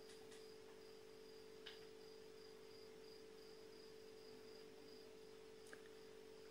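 Near silence: room tone with a faint steady hum and a few faint, short clicks.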